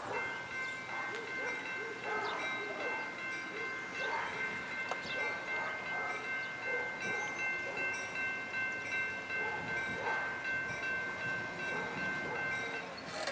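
Railroad grade-crossing warning bell ringing steadily as the train approaches, then falling silent shortly before the end.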